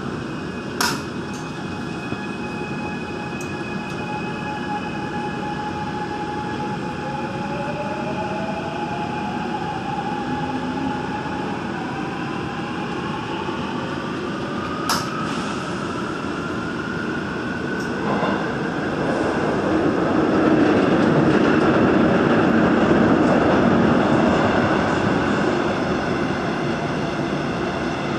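Gwangju Metro Line 1 train running through a tunnel: a steady rumble of wheels on rail, with a motor whine that rises in pitch over several seconds. Two sharp clicks sound, one about a second in and one about halfway. The running noise then grows louder for several seconds.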